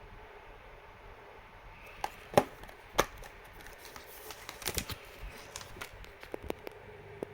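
A Blu-ray case being handled: a string of sharp plastic clicks and snaps over a steady low hiss. The two loudest come about two and a half and three seconds in, then a quick cluster of clicks follows, with lighter ticks after it.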